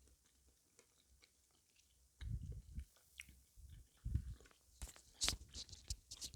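A person chewing sweets. Soft, low chewing starts about two seconds in, followed by a run of sharp crunches and clicks in the second half.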